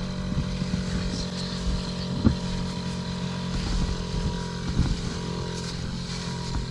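50cc two-stroke engine of a kids' ATV, a clone of the Suzuki 'Noppeli', running at a fairly even speed, with a few short knocks over bumps.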